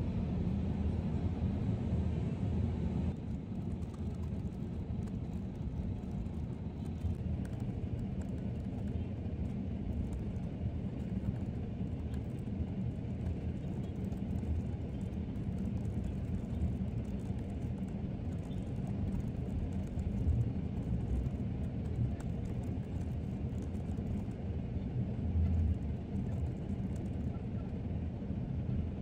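Steady low rumble of distant city traffic, with faint clicking of laptop keys being typed on.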